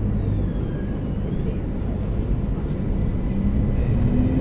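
Tram running, heard from inside the car: a steady low rumble of wheels on rails. Near the end a whine from the electric traction motors rises in pitch as the tram picks up speed.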